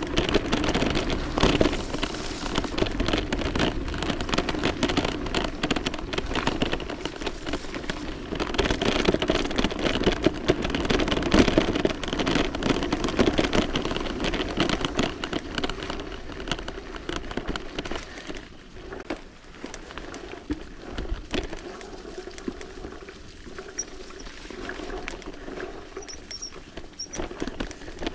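Mountain bike riding down a muddy forest trail: a continuous rushing crackle of tyres and spattering mud, easing off somewhat about two-thirds of the way through.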